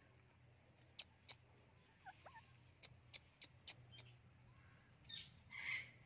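Quiet sounds from a white ringneck parakeet: a scatter of sharp clicks, then a short raspy call near the end, its second part the loudest sound.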